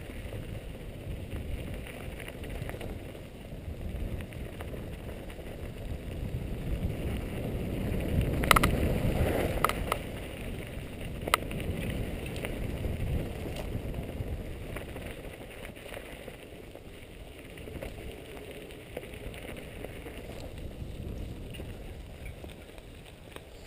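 Mountain bike ridden over a dirt forest trail, heard from a helmet-mounted camera: wind rumble on the microphone along with tyre and frame rattle. It gets louder around the middle, where a few sharp clacks from the bike stand out, then eases off as the ride slows.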